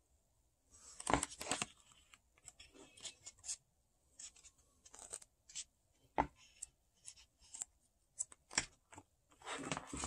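Pages of a paperback booklet being turned and flipped by hand: crisp paper rustles and ticks in uneven clusters, with a few sharp taps. Near the end a denser flurry of rustling as the book is shut.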